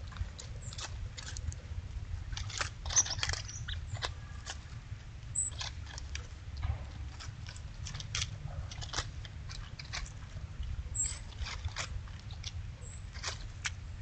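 A male northern cardinal foraging in dry leaf litter and mud: irregular small clicks and rustles from pecking and hopping, over a low steady rumble. The sharpest click comes about 3 seconds in.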